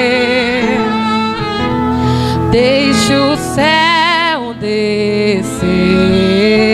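A woman singing a slow worship song into a microphone, her held notes wavering, over a sustained instrumental backing; her voice breaks off briefly twice between phrases.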